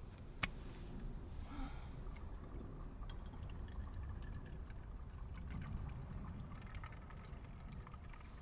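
Liquid being poured, with a sharp click about half a second in and a few lighter clicks around three seconds in.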